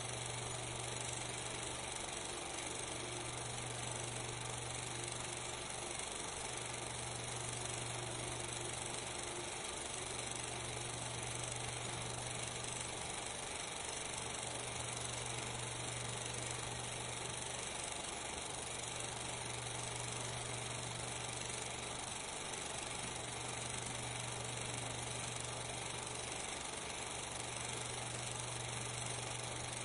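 Steady hiss of the soundtrack with a low hum that swells and fades every few seconds; no sound from the dancing or drumming on screen is heard.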